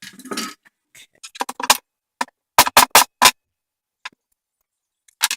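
Plastic toy sewing machine parts being handled during disassembly: a run of separate clicks and knocks, with four sharp ones in quick succession about halfway through.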